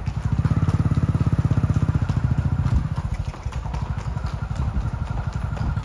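An engine running at a steady speed with a fast, even putter, easing off a little about three seconds in.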